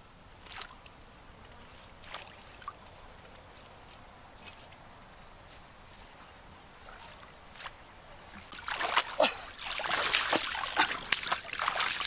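Splashing, squelching and rustling as a person moves through wet grass and shallow muddy water, starting about eight and a half seconds in and getting louder; before that only quiet field ambience with faint ticks.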